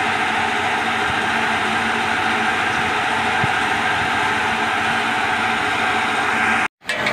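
Amusement-park pendulum swing ride running, a steady, even machine noise with a faint low hum underneath; it cuts off abruptly just before the end.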